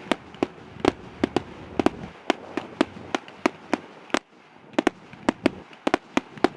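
Fireworks going off in a rapid, irregular run of sharp cracks and bangs, about four or five a second, with a brief lull about four seconds in.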